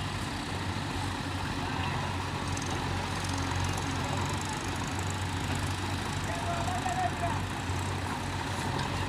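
Diesel engine of heavy machinery running steadily at a low, even speed.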